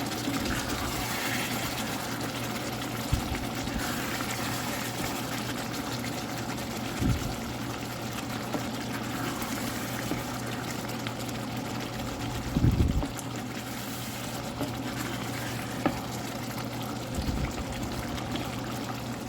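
Dried squid sambal sizzling in oil in a pan, a steady hiss over a low hum, with a few dull knocks.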